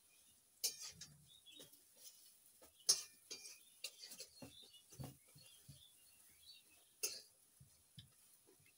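Eating instant noodles by hand: three short, loud slurps of noodle strands, a little under a second in, about three seconds in and about seven seconds in, with soft wet chewing and lip-smacking between.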